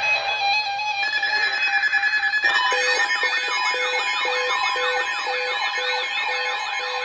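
Several weather alert radios sound their alarms together for a severe thunderstorm warning. At first there are steady tones. From about two and a half seconds in comes a loud mix of warbling sweeps and beeps, one beep repeating about twice a second.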